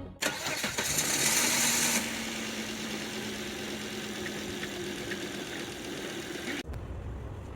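Volvo XC70 2.5L turbocharged inline-five engine starting, loudest for the first two seconds, then settling into a steady idle on freshly fitted spark plugs and ignition coils. Near the end the sound cuts abruptly to a low, wind-like rumble.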